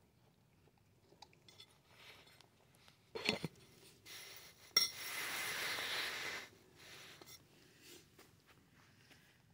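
A cat eating from a stainless steel food bowl, the bowl clinking and knocking: a loud clatter about three seconds in and a sharp click just before five seconds. A second or so of rustling follows.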